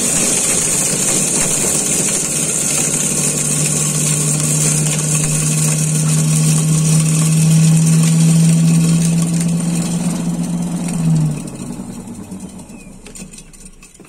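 Commercial stainless-steel food processor running, its blade chopping garlic with salt into a paste: a steady motor hum with a high hiss. About eleven seconds in the motor is switched off and spins down.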